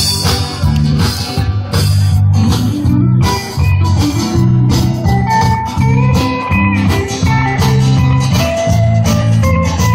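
Live band playing an instrumental break: an electric guitar plays a lead line of held, slightly bending notes over strummed acoustic guitar and drums.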